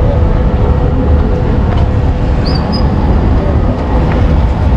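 Street traffic noise: a steady, loud low rumble.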